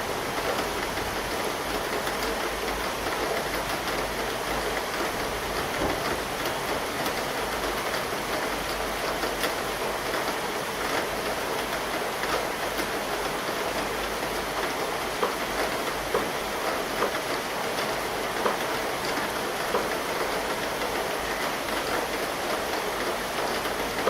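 Steady rain of a summer thunderstorm, with sharper drop ticks standing out now and then, mostly in the second half.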